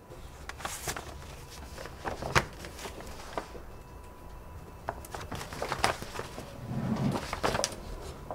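Sheet of paper being handled and rustled, with a scatter of short clicks and light knocks of things moved on a desk.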